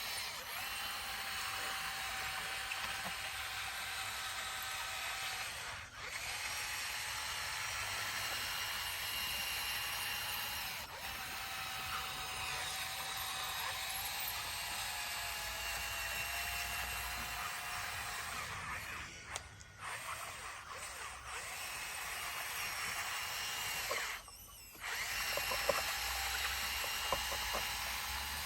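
A machine's motor running steadily with a whine, dropping away abruptly for brief moments several times.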